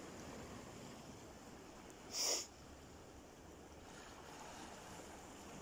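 Steady wind and sea-surf noise, with one short, sharp burst of hissing noise about two seconds in.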